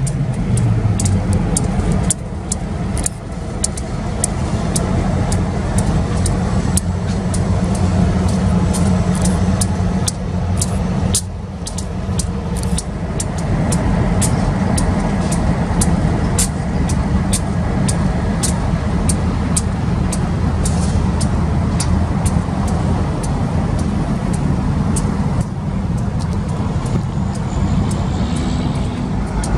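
Two Union Pacific diesel road-switcher locomotives running as they roll slowly past, their engines giving a steady low rumble, with many short sharp clicks throughout.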